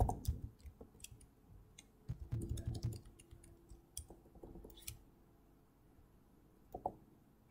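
Faint, sparse clicks and keystrokes on a computer keyboard while code is edited: a short run of keystrokes a little after two seconds in, then a few single clicks with pauses between.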